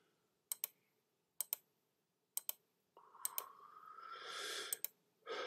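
Computer clicking: five sharp clicks about a second apart, each a quick double tick as the button goes down and comes up, with a faint hiss-like sound in the middle.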